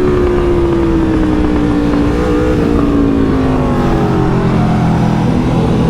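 Motorcycle engine running hard on the road, its pitch sliding slowly down over several seconds as the revs drop, then beginning to climb again near the end.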